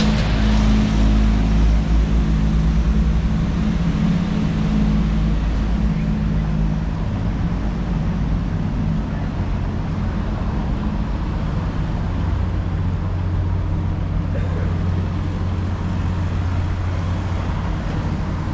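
Street traffic: a motor vehicle's engine running close by as a steady low hum, loudest in the first few seconds, over the even noise of passing cars.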